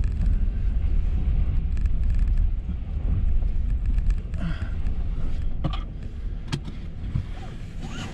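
Car heard from inside the cabin while driving slowly: a steady low rumble of engine and road noise that grows quieter near the end, with a couple of light clicks.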